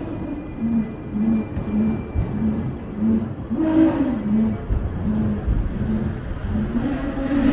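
Hong Kong double-decker tram running, with a low rumble from the car body and rails and a low pulsing tone that repeats about every 0.6 s.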